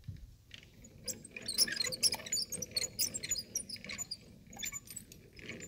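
Irregular light clinks and squeaks of metal dock hardware being handled and shifted in shallow water, from about a second in until near the end.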